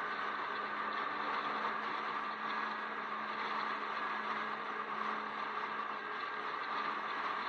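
A Jeep driving at a steady cruising speed: steady road and wind noise with an even engine hum underneath, holding one pitch.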